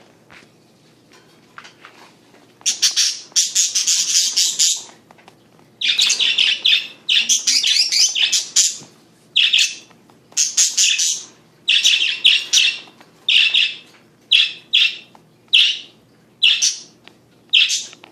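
Pet budgerigars (parakeets) chirping. Long, rapid runs of chirps start a couple of seconds in, then break into short bursts about once a second.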